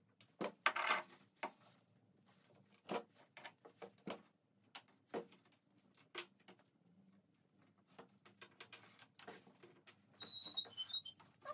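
Scattered, irregular light clicks and taps of oil pastel sticks and their boxes being handled and shifted on a tabletop, with a short high chirp near the end.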